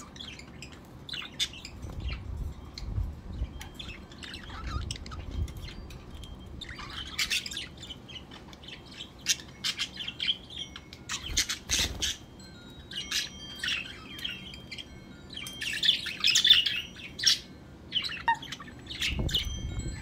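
Pet budgerigars chirping, chattering and squawking in quick, scattered calls, with a couple of sharp clicks about twelve seconds in.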